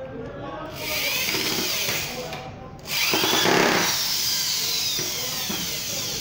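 Corded electric hand drill boring into a small wooden block in two runs: a short one about a second in, then a longer, louder one from about three seconds in, its whine slowly falling in pitch.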